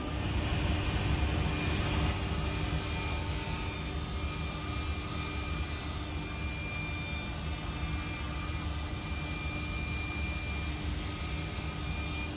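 SIP 01332 table saw running with its dust extraction on: a steady machine noise with a low motor hum that comes in at the start.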